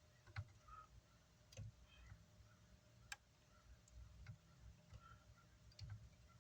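Faint, scattered clicks and light taps of small tools and parts being handled on an electronics repair bench, about five over several seconds, over a low hum.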